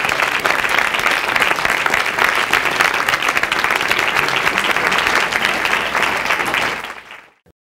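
Audience applauding: dense, steady clapping from a crowd of many people, fading out near the end.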